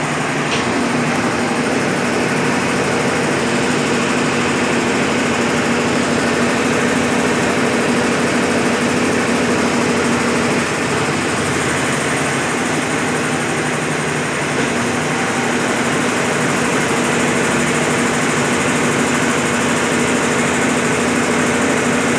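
Brastemp BWL11 11 kg washing machine spinning a load of rugs on its final spin cycle: a steady motor and drum hum.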